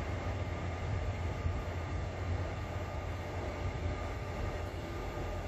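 Locomotive-hauled passenger train running away along the track, a steady low rumble with a faint, steady high whine over it.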